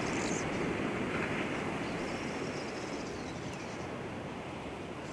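Sea washing against shoreline rocks: a steady rushing surf noise that eases slightly in level.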